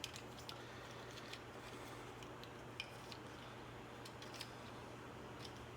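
Faint, scattered clicks and light taps from hands and tools working plastic interior trim, over a steady low hum.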